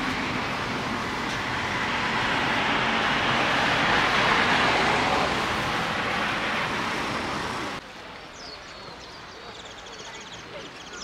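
A road vehicle passing close by: a broad rushing noise that swells to a peak about four seconds in, then fades and cuts off sharply near eight seconds. After that comes quieter open-air ambience with small birds chirping.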